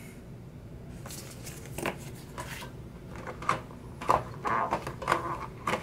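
Hands handling paper sheets and a notepad in an open metal tin: a series of light, irregular rustles, scrapes and taps, coming more often in the second half.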